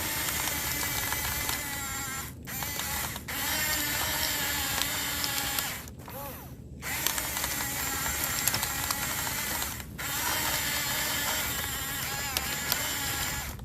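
Huina RC excavator's small electric motors and plastic gearboxes whirring as it works, in several runs with brief stops about 2.5, 6 and 10 seconds in, plus a few clicks.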